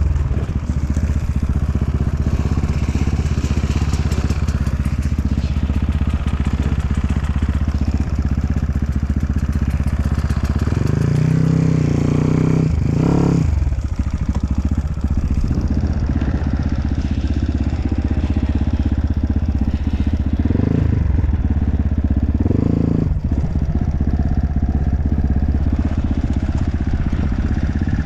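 Dirt bike engine running as it is ridden off-road, the revs rising and falling with the throttle. Sharp rises in revs come about halfway through and twice more later.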